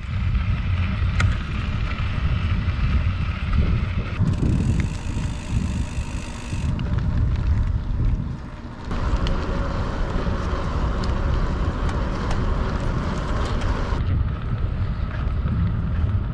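Wind buffeting the microphone and rolling noise from a bicycle being ridden, with a few light clicks. The sound changes abruptly several times.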